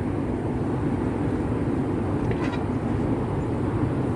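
Forge running with a steady low roar, an even, unbroken rushing noise. There is a faint tick about two and a half seconds in.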